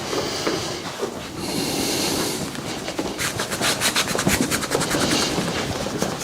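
Hands working on a patient's body: a stretch of rubbing on skin, then a quick, even run of percussive taps, about seven a second, for some two seconds.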